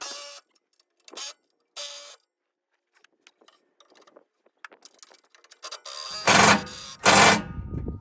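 Work sounds from hand work on parts: three short scraping or ratcheting strokes in the first two seconds, then two loud knocks about six and seven seconds in.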